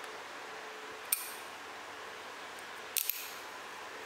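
Small sharp metallic snaps as a thin spot-welded metal strip is peeled off its test piece, the weld spots breaking: one snap about a second in and a quick double snap about three seconds in. A loud clatter begins right at the end as the test piece drops.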